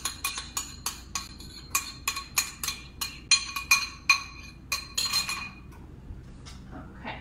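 Metal spoon tapping and scraping inside a glass measuring jug, a quick run of sharp ringing clinks, as the last of a thick wet mixture is scraped out. The clinks thin out and stop about five seconds in.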